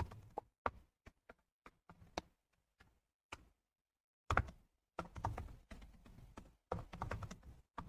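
Computer keyboard typing: scattered single keystrokes, then quicker runs of keys about halfway through and again near the end.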